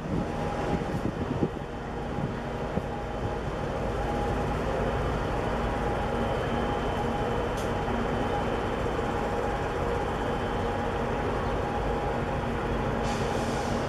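A 5,300-TEU container ship's engine drones steadily as the ship steams past: a low, even rumble with a steady hum.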